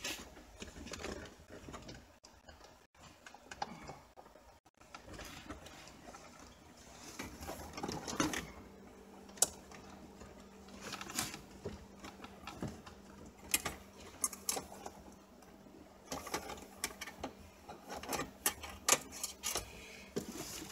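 Scattered clicks, taps and rustling of plastic dash trim and wiring being handled during a car stereo install, with a faint steady hum coming in about eight seconds in.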